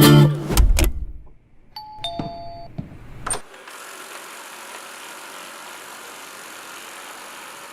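Eufy RoboVac 11S robot vacuum: a short two-tone electronic chime and a click, then its suction fan running with a steady whir. The tail of guitar music fades out at the start.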